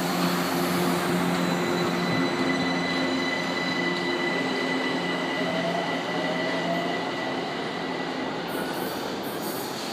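São Paulo Metro Line 1 electric train pulling out of the platform and accelerating away. A low motor hum and a steady high whine sound together, with a tone that rises in pitch as it speeds up, and the whole fades gradually as the train recedes.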